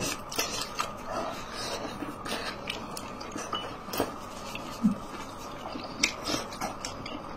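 Close-up chewing and wet mouth sounds of someone eating a boiled dumpling, with irregular small smacks and sharp clicks, the loudest right at the start and at about four and five seconds in.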